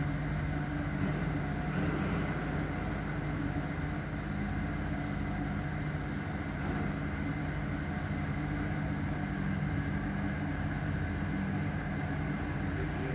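Steady low mechanical hum over an even background noise.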